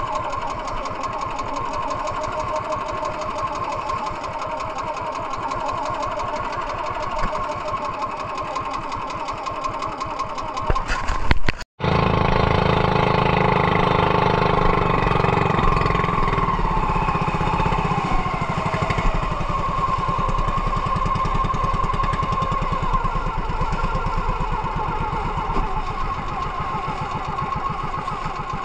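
Small outrigger fishing boat's engine running steadily. After a cut about 12 seconds in it runs louder and deeper, with water spray and wind as the boat moves, and its pitch sags briefly a few seconds later.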